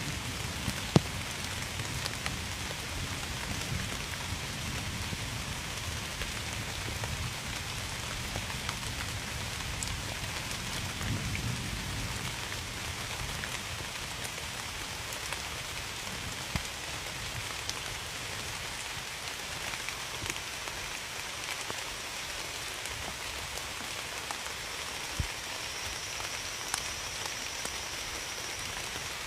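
Steady rain falling, with single drops ticking close by now and then; one sharper drop lands about a second in.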